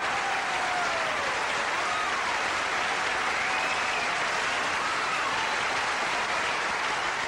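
Large theatre audience applauding steadily, with a few cheering calls above the clapping that glide up and down in pitch.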